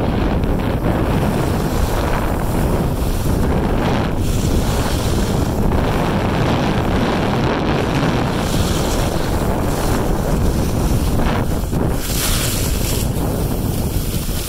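Wind buffeting the phone's microphone of a skier moving down a groomed run, a loud steady rush, with the skis sliding over the packed snow mixed in.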